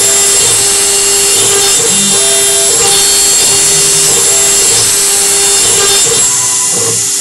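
CNC router spindle running with a steady high whine while its end mill cuts an aluminium part, the cutting noise swelling in low pulses about every half second as the tool works along the cut. Near the end the highest part of the whine falls away and the sound eases off a little.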